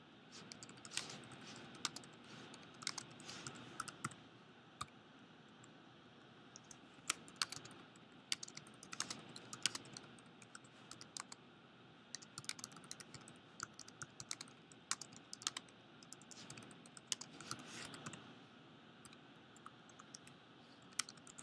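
Faint typing on a computer keyboard: irregular runs of keystrokes, with a pause of about a second and a half a few seconds in.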